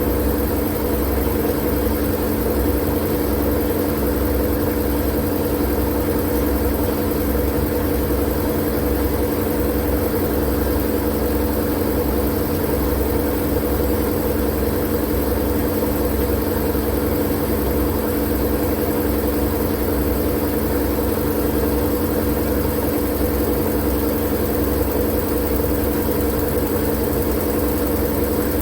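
Steady sleep white noise: an unchanging hiss over a low hum and rumble, with no breaks or changes.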